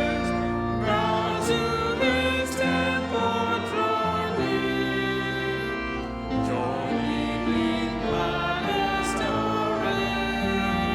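Congregation singing a hymn together with instrumental accompaniment, in sustained chords that change every second or so.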